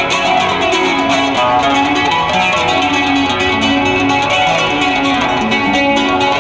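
Nylon-string classical guitar played in flamenco style: a continuous run of quickly plucked notes and strummed chords.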